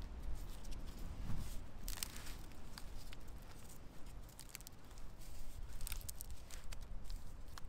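Hazel withy being twisted into an eye by hand to start a timber hitch, its fibres crackling and splitting in a run of small sharp clicks, thickest about two seconds in and again near six seconds.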